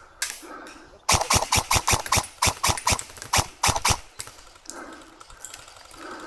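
Airsoft gun firing a rapid string of about fifteen sharp shots, starting about a second in and stopping about three seconds later.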